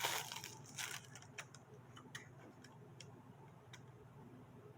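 Light rustling, then a few faint, scattered clicks of small plastic camcorder accessories, the battery and its charging dock, being handled.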